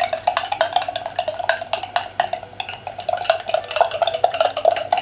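A spoon stirring thick homemade tartar sauce in a glass container, clicking and clinking rapidly against the glass.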